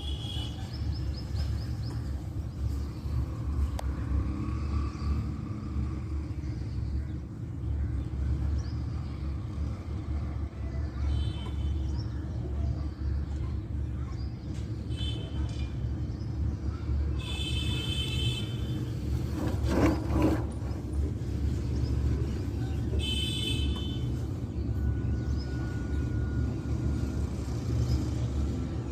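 A bird giving several short, high calls at intervals, the longest and loudest about two-thirds of the way in, over a steady low rumble. A brief knock comes just after the longest call.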